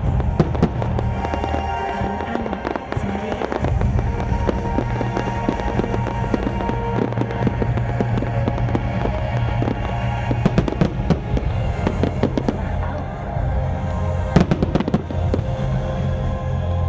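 Fireworks going off: a steady run of bangs and crackles, with a cluster of louder bangs near the end, over music with a steady bass line.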